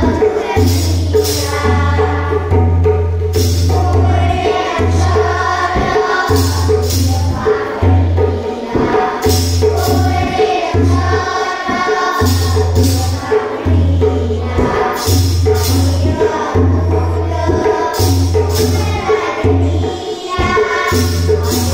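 A group of children singing a Marathi action song together in phrases, accompanied by a steady beat on a pair of hand drums.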